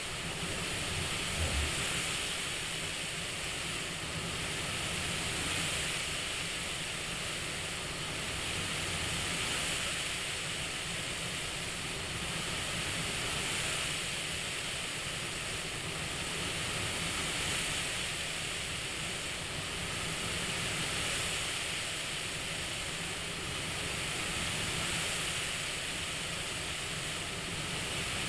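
CPAP-style airflow hiss: a steady white-noise rush that swells and eases gently about every four seconds, like slow assisted breathing.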